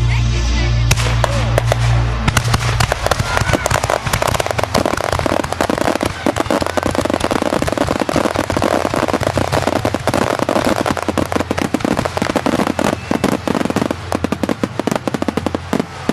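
Aerial fireworks going off in a dense barrage of rapid crackling bangs, many per second, from about two seconds in until near the end. A low steady drone is heard before the barrage takes over.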